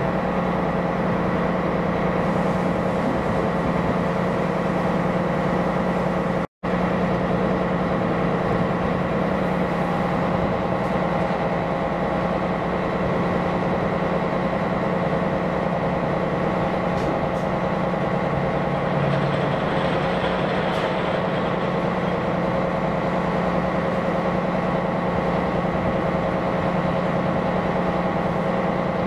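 Steady drone of a ship's diesel engine running at low, even speed, a low hum with a few constant tones. It cuts out for a moment about six seconds in.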